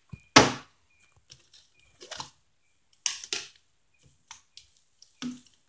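Plastic slime containers clicking and knocking on a glass tabletop as they are handled and set down: a string of separate sharp knocks, the loudest just after the start.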